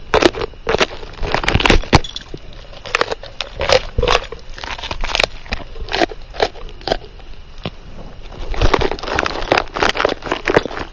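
Irregular crunching and crackling: many short, sharp cracks and rustles at an uneven pace, thinning out in the middle and thickening again near the end.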